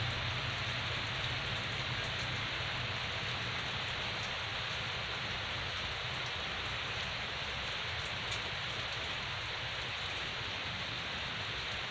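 Steady hiss of rain, constant throughout, with faint scattered fine ticks.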